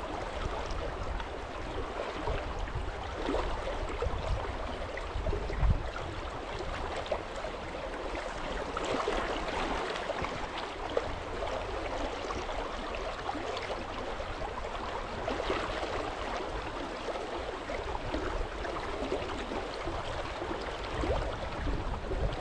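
Creek water flowing steadily, a continuous even rush, with a few low bumps, the strongest about six seconds in.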